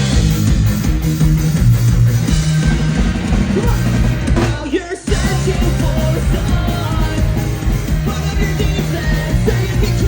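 Live punk rock band playing loud: drum kit, electric guitar and shouted singing. The band drops out for a moment about halfway through, then comes straight back in.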